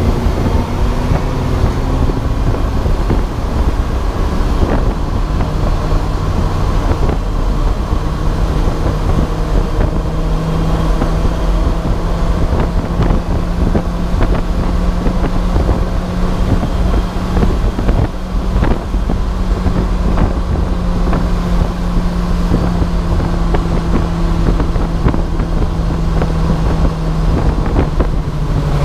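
Endurance race car's engine running hard at speed, its note shifting over the first few seconds and then holding steady for most of the rest, with scattered knocks and rattles over a thick wash of road and wind noise.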